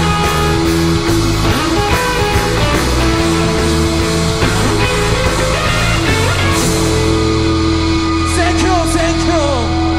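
Live rock band with two distorted electric guitars, bass guitar and drums playing loud and dense. About seven seconds in the cymbal hits fall away, leaving a long held bass note under sliding, wavering electric guitar tones.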